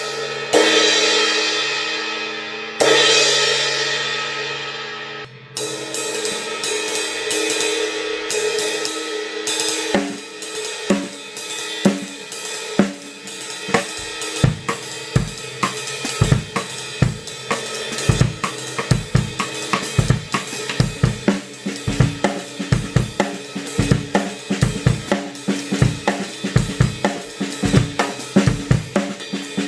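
Zildjian A Uptown Ride 18-inch cymbal struck twice and left to ring, then played in a steady ride pattern. From about ten seconds in, a drum kit groove joins, with regular bass drum hits under the cymbals.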